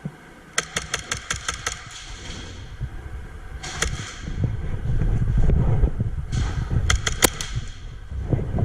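Airsoft guns firing: a quick string of about nine shots about half a second in, and a few more near the end. Low wind rumble on the microphone builds through the second half.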